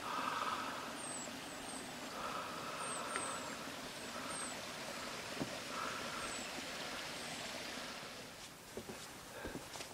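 Steady outdoor wind rush on the microphone, with a small bird's high, thin, downward chirps scattered through it. Near the end, footsteps knock on a wooden boardwalk.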